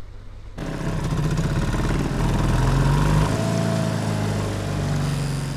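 Honda outboard motor running, its sound jumping much louder and closer about half a second in. Its speed rises a little near the middle and then settles back.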